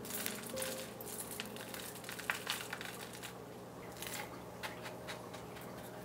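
Limestone sand being pressed and worked in by hand: an irregular run of gritty crunches and small crackles, with a few sharper scrapes about midway.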